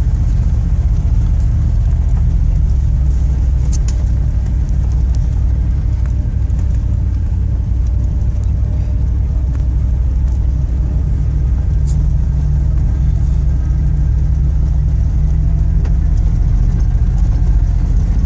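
Chevy Suburban's engine running steadily at low revs as it drives a rough, muddy dirt trail, heard from inside the cabin. A few sharp knocks and rattles come from bumps, about 4 and 12 seconds in.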